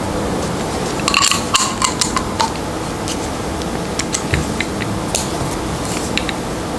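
Metal parts of an ALPA camera adapter frame clicking and clinking as they are handled and worked with a small screwdriver. A quick cluster of sharp clicks with a brief ring comes about a second in, then scattered single ticks follow.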